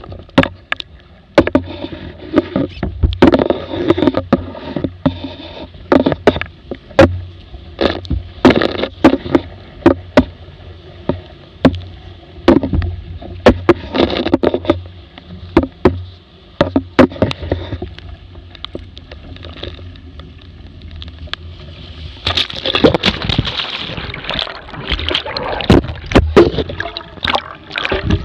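Laser dinghy's hull slapping and banging through wind-driven chop, with irregular sharp knocks and water hissing along the hull under steady wind rumble. About three quarters of the way through, a louder, heavier rush of water sets in as spray and water wash over the boat.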